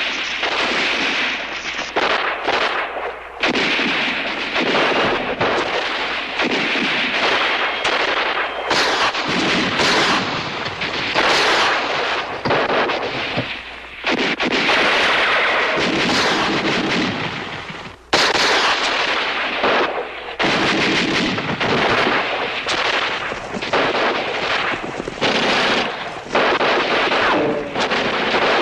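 Sustained battle gunfire: many rifles firing at once in rapid, overlapping shots, with a brief break about 18 seconds in.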